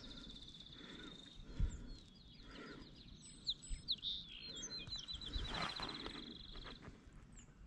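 A songbird singing long, fast trills of evenly repeated high notes, one running into the next. A few soft knocks and a brief rustle are heard beneath it.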